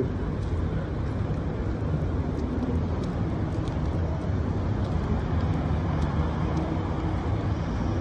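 Steady road traffic: cars passing on a city avenue, a continuous rumble of engines and tyres.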